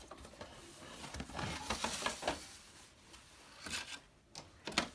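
Rubbing and scraping of a cardboard box and packaging as a plastic toy dump truck is slid out of it, with several short knocks and scrapes.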